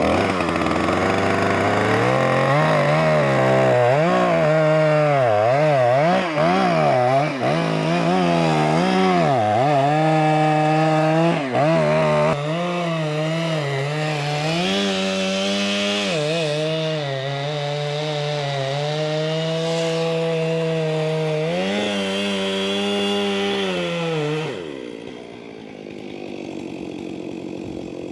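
Two-stroke chainsaw cutting into a bloodwood tree trunk, its engine pitch dipping and rising as the chain bites into the wood. The saw drops away near the end.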